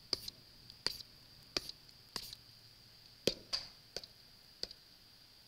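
About eight light, irregularly spaced taps and clicks of a stylus on a screen while answer choices are crossed out, over a faint steady high whine.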